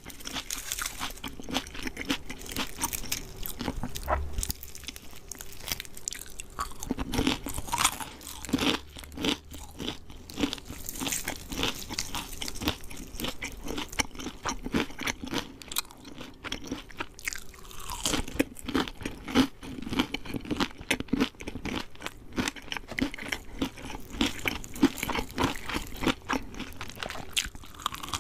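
Close-miked eating of crispy fried chicken: crunchy bites into the breaded skin and chewing, many irregular crackly crunches.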